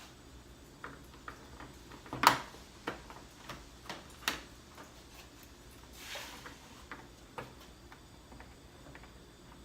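Irregular clicks and knocks of tools and intake parts being handled during a cold air intake install, with one sharper knock about two seconds in and a brief rustle near the middle.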